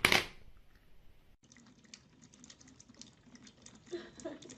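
A plastic laundry basket lid shutting with a short clatter. Then, after a cut, faint rapid ticking of a cat lapping water from a trickling kitchen tap.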